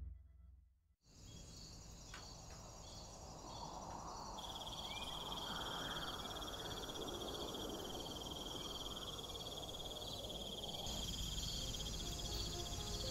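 Tropical forest ambience of insects chirring, a steady high trill joining about four seconds in over a pulsing chorus. Soft music comes in faintly near the end.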